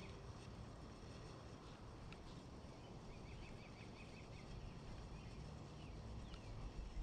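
A bird gives a quick run of high chirps about three seconds in, with a short sweeping note near the end, over a faint low rumble.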